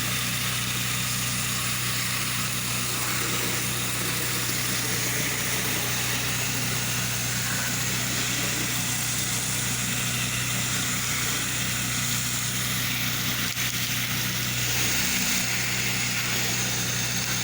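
Pressure washer running steadily while its water jet rinses a house's siding: a constant engine hum under an even hiss of spray.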